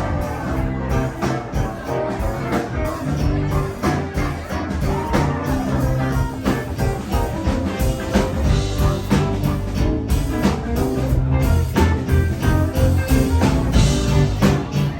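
Live rock band playing, with guitars, bass guitar and a drum kit keeping a steady beat.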